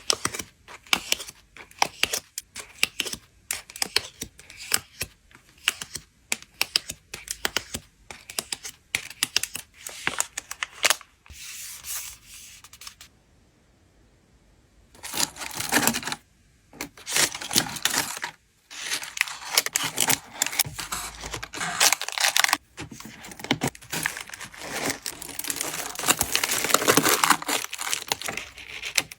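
Photocard packing materials handled by hand: plastic sleeves and wrapping crinkling and rustling, with short taps and clicks. A brief pause about halfway through, then longer stretches of tearing and rustling.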